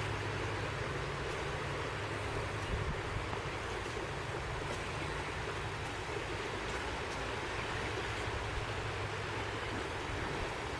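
Steady outdoor wind and shoreline surf noise, with a low engine-like drone underneath that is strongest in the first few seconds.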